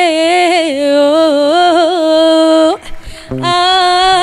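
A woman singing solo into a microphone, holding long notes with small ornamental turns, with a short breath break about three seconds in.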